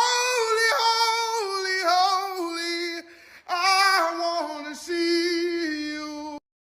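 A woman singing a slow worship song, with vibrato on the held notes. She breaks briefly about three seconds in, and the sound cuts off abruptly near the end.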